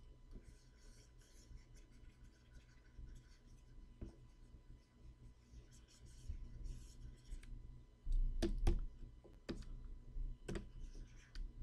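Faint scratching of a stylus drawing strokes on a Wacom Cintiq pen display, followed from about eight seconds in by a few sharp clicks.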